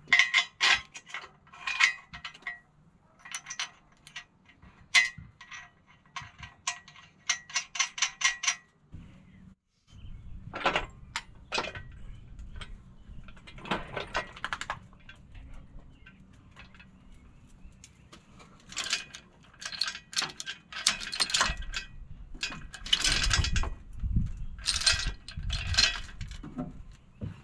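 Metal clicks and clinks with a short ringing note as the steel boom of a red 2-ton engine hoist is handled. After a break, a steel lifting chain rattles and clanks against a truck axle as it is wrapped on, with a few heavier knocks near the end.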